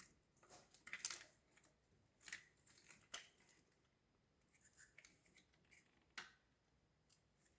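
Faint, scattered clicks and light scrapes of small parts being handled and fitted, with near silence between them.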